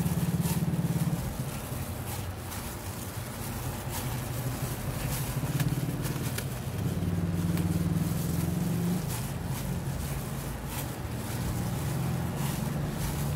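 Gloved hand mixing sticky bread dough in a stainless steel bowl, with soft scattered clicks and squelches. Under it runs a low motor drone that swells and fades.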